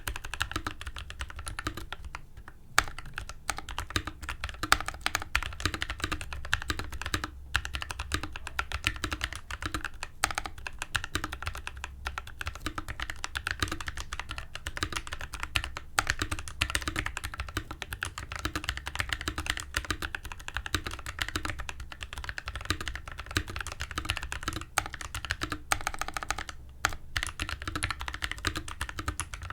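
Mechanical keyboard with lubed PACO switches, clipped and lubed stabilizers and cherry-profile PBT keycaps being typed on steadily: a dense run of key clacks with a few brief pauses.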